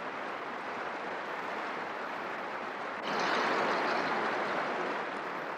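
Large conference-hall audience applauding, the applause swelling louder about three seconds in and then easing off.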